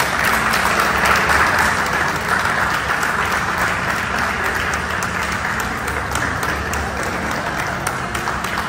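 A small group of people applauding, clapping their hands. It is loudest in the first couple of seconds, then carries on steadily.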